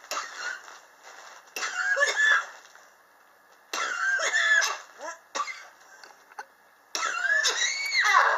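A person coughing in repeated fits, four main bouts of about a second each with short coughs between, some with a rasping, whistling pitch. It is a chronic cough that has lasted for years.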